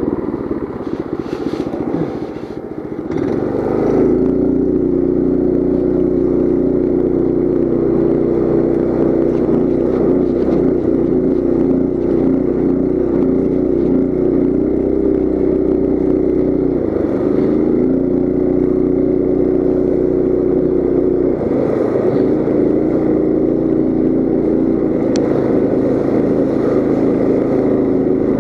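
Coleman CT200U mini bike's single-cylinder four-stroke engine running while it is ridden over snow and slush. The first three seconds are quieter and uneven, with rattling. The engine then settles into a steady note under throttle, with two brief dips in pitch past the middle.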